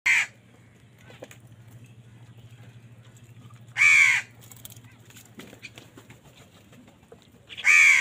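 House crows cawing: three loud single caws about four seconds apart, one at the start, one around four seconds in and one near the end.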